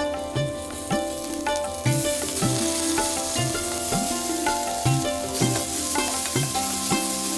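Food sizzling as it fries in a pan, a steady hiss, under instrumental background music with held tones and a drum beat about twice a second.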